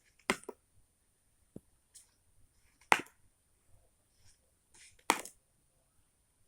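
Three sharp snaps about two and a half seconds apart, the middle one loudest, with a faint tick between the first two.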